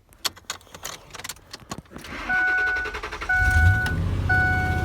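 Keys rattling, then a vehicle warning chime dinging about once a second, and the Ford 5.4 L Triton three-valve V8 cranking and catching about three seconds in, settling into a steady idle.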